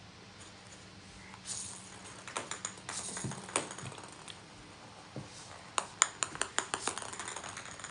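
Small hard plastic balls bouncing and clattering on a wooden floor. There are two runs of light clicks, the second a quick series of bounces about six seconds in, which is also the loudest.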